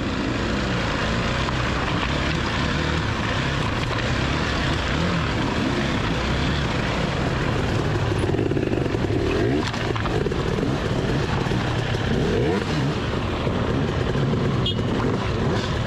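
Off-road dirt bike engine running at low revs, the pitch rising and falling with the throttle around the middle.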